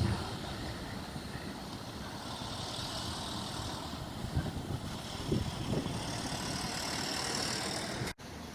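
Strong wind buffeting the microphone: a steady low rumble with a few harder gusts between about four and six seconds in, then a brief cut to silence near the end.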